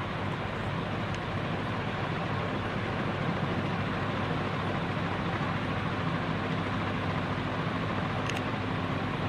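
CMC CF-101 48-inch industrial ceiling fan running steadily: a low motor hum under a constant rush of moving air.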